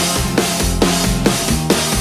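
Loud background rock music with a steady, driving drum beat.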